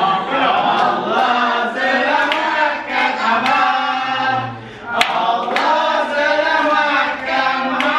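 A group of family members singing a birthday song together while clapping along, with a short pause in the singing just past the midpoint.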